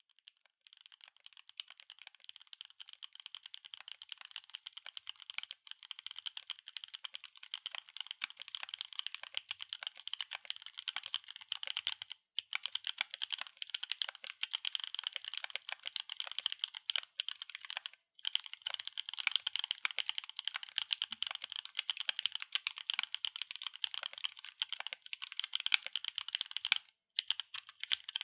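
Continuous rapid typing on an MKC75 mechanical keyboard with Gateron EF Curry linear switches, an aluminium plate and PBT double-shot keycaps: a dense stream of key strokes. It grows louder over the first few seconds and breaks off briefly three times.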